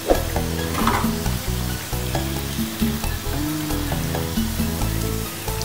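Hot oil sizzling steadily as potato wedges deep-fry in a pan, with a brief knock right at the start.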